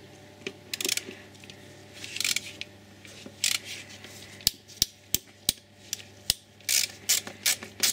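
Ratchet wrench with a 10 mm socket clicking in short bursts as it undoes the ignition coil pack bolts, with a few sharper metallic ticks about halfway through.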